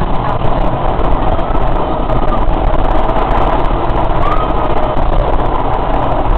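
Tyne and Wear Metro electric train running at speed, heard from inside the car: a steady noise of wheels on rail. A brief rising whine comes about four seconds in.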